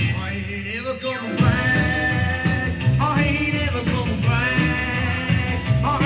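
Early British rock and roll recording with a male singer and band, played back through loudspeakers. The bass drops out briefly just after the start, and the full band comes back in about a second and a half in.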